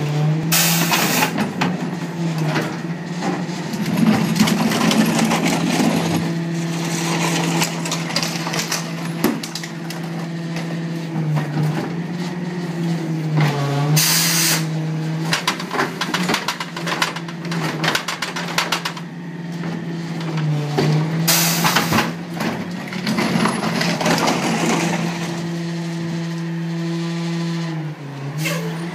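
Rear-loader garbage truck working at the curb: its engine runs steadily to drive the hydraulics, its pitch dipping briefly several times, while wheeled carts are tipped into the hopper and the packer works. There is clattering throughout, and three short, sharp rushes of hiss about a second in, near the middle and about two-thirds of the way through.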